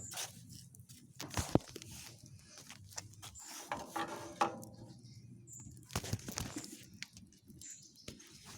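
Campfire crackling, with sharp, irregular pops and snaps. A brief pitched sound, a voice or an animal call, comes about four seconds in.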